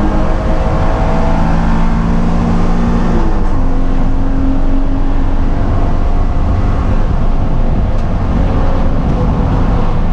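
BMW E36 M3 race car's straight-six engine under hard acceleration, heard from inside the cabin over steady road and wind noise. There is one gear change about three seconds in, and the engine eases off near the end as the car brakes.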